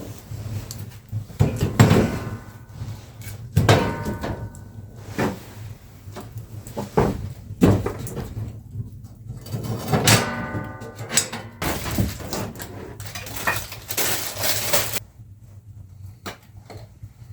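Irregular knocks, thumps and scrapes of things being handled in a small room, with squeaky creaks about two and ten seconds in and a loud rushing hiss from about twelve to fifteen seconds in.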